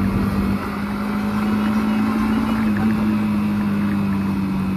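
Yamaha MT-15's single-cylinder 155 cc engine running steadily in third gear while cruising at about 50 km/h, its note rising slightly about three seconds in.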